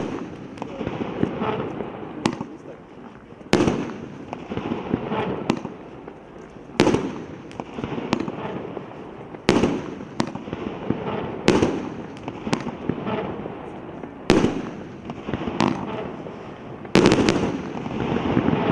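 A 25-shot, 1.25-inch firework cake (Grigory Potemkin R7674) firing its shells. Sharp bangs come about every one and a half seconds, with a dense rustling noise from the bursting effects between them, and a rapid run of bangs near the end.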